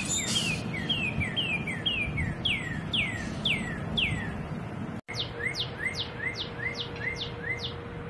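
Male northern cardinal singing a series of clear down-slurred whistles. The first phrase has quick paired notes, then longer slurs at about two a second. After a brief break in the sound just past halfway, a new phrase follows: steep down-slurred whistles, each with a short lower note, about three a second.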